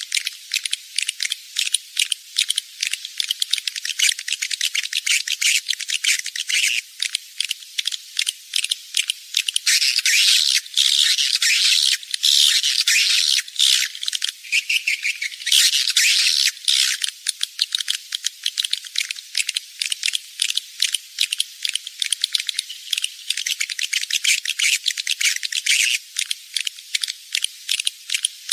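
Edible-nest swiftlets' dense, rapid clicking and chattering calls, thin and high with nothing low. It is a swiftlet call-sound (suara panggil) recording of breeding-season ('birahi') calls, played in swiftlet houses to lure the birds in to roost and nest.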